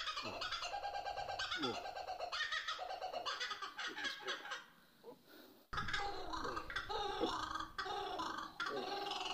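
Chorus of wild animal calls: many short, repeated chirping notes with quick downward slides in pitch. It drops away briefly a little past halfway, then comes back suddenly and denser.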